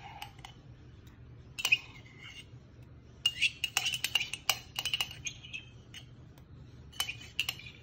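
A metal spoon clinking and scraping against a ceramic mug while scooping out smashed garlic: a single clink a couple of seconds in, a quick run of ringing clinks from about three to five and a half seconds, and a few more near the end.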